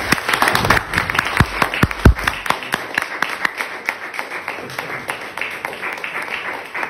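Audience applauding with many hands clapping, slowly dying down, with two dull knocks about two seconds in.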